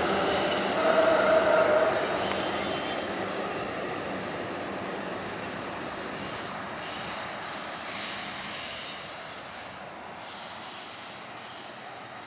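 MARC commuter train's bilevel passenger coaches rolling past on the rails, with a brief wheel squeal about a second in. The rumble fades steadily as the last cars clear and the train moves away.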